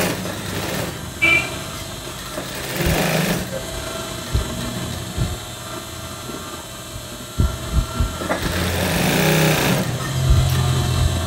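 Industrial lockstitch sewing machine stitching in short runs: a brief run about three seconds in and a longer one from about eight seconds, with a few sharp knocks in between as the work is repositioned under the needle.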